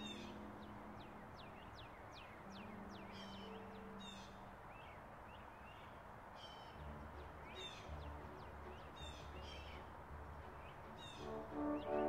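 Songbirds singing: many short, quick down-slurred chirps repeated over and over, over faint orchestral music that swells up near the end.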